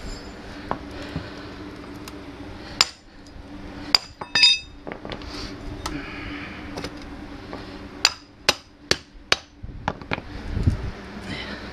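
Small sledgehammer striking a splitting wedge driven into a dry Osage orange limb: single ringing blows at first, then four quick blows about half a second apart near the end.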